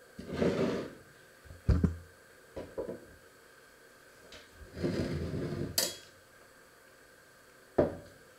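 Kitchen handling sounds: a handful of separate short scrapes, knocks and clinks of dishes and utensils, with a sharp knock about two seconds in, a bright click near six seconds and another knock near the end.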